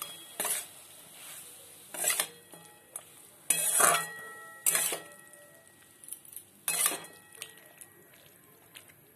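Spatula scraping and knocking against a metal pan while potatoes and yard-long beans in poppy-seed paste are stirred together. The strokes come every second or two, the loudest about four seconds in.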